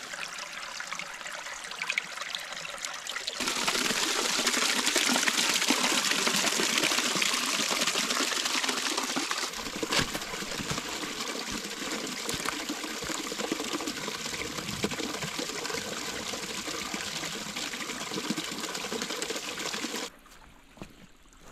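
Small forest stream trickling and splashing over mossy rocks in a little cascade, a steady rush of water. It grows louder about three and a half seconds in and drops away suddenly near the end.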